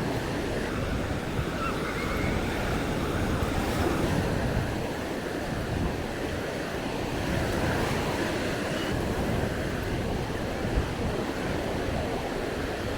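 Waves washing onto a sandy beach, a steady surf wash with slow swells, and wind rumbling on the microphone.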